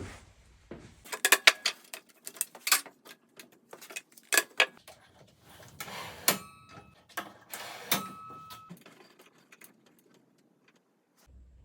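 Metal parts of a table saw being handled and set, giving a run of sharp clicks and clanks. A couple of them, around six and eight seconds in, leave a short metallic ring. The saw motor is not running.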